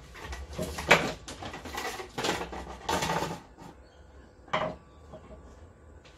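Plastic rear panel of a flat-screen TV being lifted off and handled: a run of knocks and scrapes, the sharpest about a second in, and one more knock at about four and a half seconds.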